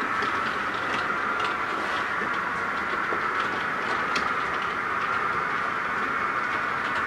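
Model railway train running on its track, heard close up from a camera riding on it: a steady motor whine with light, irregular clicks of wheels over the rail joints.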